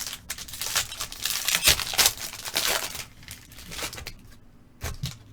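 A foil trading card pack wrapper being torn open and crinkled, a run of crackling for about four seconds that dies down near the end.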